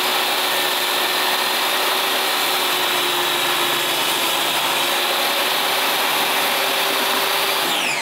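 A 10-inch corded table saw running at full speed with a steady whine, its blade ripping a deck board lengthwise. It is switched off near the end, and its pitch begins to fall as the blade winds down.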